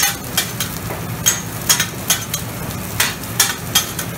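Metal spatulas scraping and clanking on a Mongolian barbecue flat-top griddle, in irregular strikes about three a second, over food sizzling on the hot steel.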